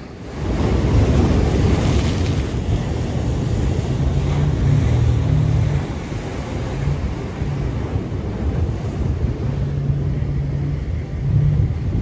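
Ocean surf breaking and washing over shoreline rocks, swelling about half a second in and again near the end, with wind rumbling on the microphone.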